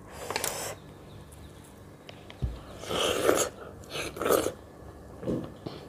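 Close-up eating sounds of a ripe mango slice being bitten and eaten off its skin, in several short, wet bursts with a soft low thump partway through.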